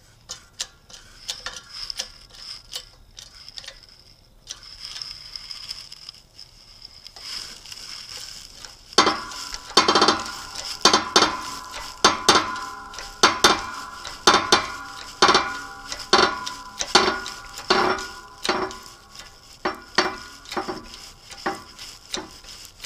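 Shop press being pumped by hand to push a 6201 ball bearing off a Yamaha QT50 final-drive pinion shaft: faint clicks at first, then from about nine seconds a regular metallic clinking, about one and a half strokes a second, with a ringing metal tone under it as the bearing is forced along the shaft under load.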